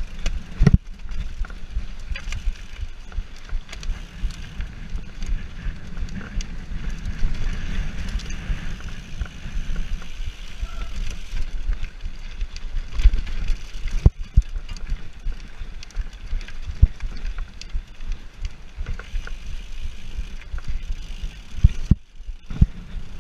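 Mountain bike rattling and rumbling as it is ridden over a rough dirt trail and steps, with frequent knocks and clatter from the frame, fork and chain, and a few sharper hits in the middle and near the end.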